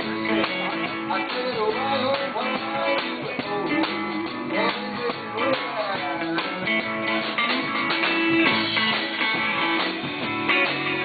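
Live rock-and-roll band playing an instrumental passage led by guitar, with notes gliding up and down in pitch over strummed chords.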